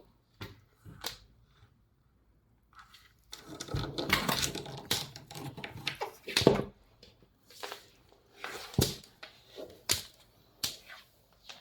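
Snapping turtle walking around: irregular clicks and knocks of its claws and shell on the floor, with a stretch of denser scraping about three to five seconds in.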